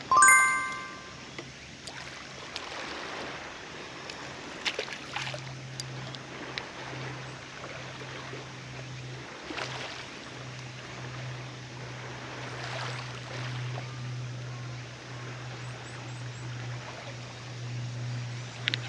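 A bright chime of several clear tones, about a second long, then a steady wash of water-like noise with a few faint clicks. A steady low hum joins about five seconds in.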